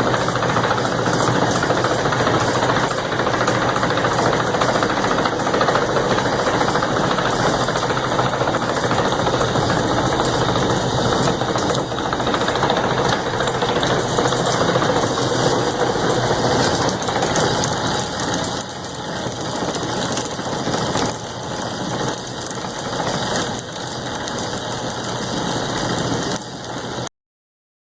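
Feed-handling farm machinery running steadily with a dense mechanical clatter over a low engine hum. It cuts off suddenly near the end.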